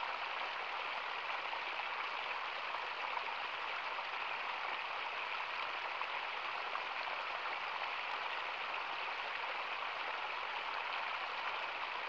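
A small stream pouring over a rock ledge and splashing steadily into the pool below, a continuous even rush of water.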